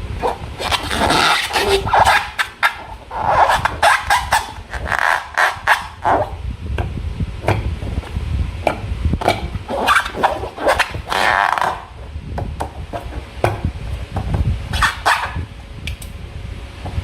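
Slime being squeezed and worked by hand: irregular wet squelches and sticky clicks and pops, in uneven clusters, easing a little in the last few seconds.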